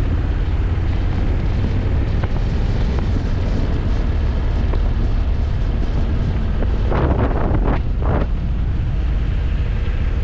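Honda Africa Twin motorcycle riding at road speed: engine running under heavy wind noise buffeting the microphone, with a brief louder rush of noise about seven seconds in.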